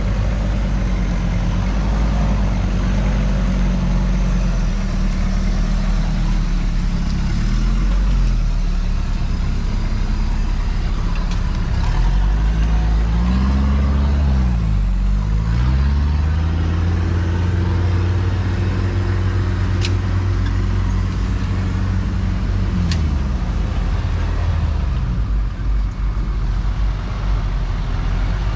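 Modified off-road four-wheel drives crawling up a rock ledge, engines revving up and down, more than one engine heard at once. There are two sharp knocks about two-thirds of the way through.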